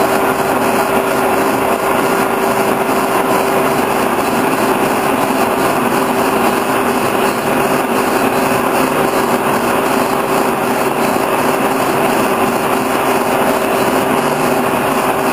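Horizontal boring mill running steadily, its spindle and faceplate turning a steel shaft for lathe-style turning. It makes an even machine drone with one constant hum in it.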